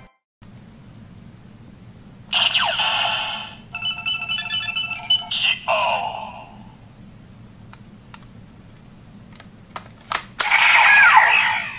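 Electronic sound effects from a Ziku-Driver toy belt and Zi-O Ride Watch. About 2 s in comes a short electronic burst, followed by a pattern of beeps and a falling tone. Several sharp plastic clicks follow as the watch is fitted to the belt, and another loud electronic burst comes near the end.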